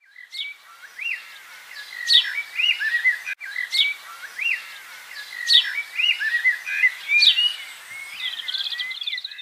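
Birds chirping and calling: short rising-and-falling whistles and quick sharp chirps, with a fast trill near the end.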